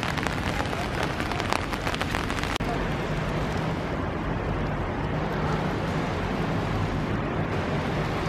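Rainy street ambience with crackling on the microphone, then after a brief dropout about two and a half seconds in, a steady station-hall ambience with a low hum.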